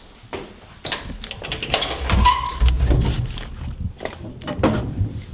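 Knocks, scrapes and clatter of someone climbing up onto a flat roof, with heavy handling rumble in the middle, while dogs bark.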